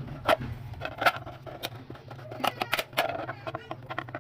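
A series of about seven sharp knocks and clicks, irregularly spaced and bunched near the end, over a steady low hum.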